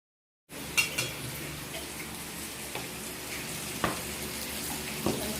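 Meat sizzling on a Korean barbecue grill, starting suddenly about half a second in, with a few sharp clicks of utensils against the grill plate.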